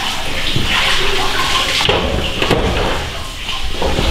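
Water running from a tap into a stainless steel sink, a steady rushing, with a few brief knocks of handling over it.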